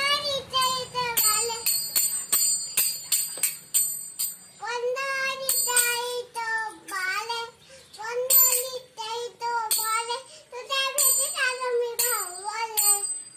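A young child singing a Marathi abhang while striking a pair of small brass hand cymbals (taal). The cymbals are struck over and over in time with the song, each strike ringing briefly and high.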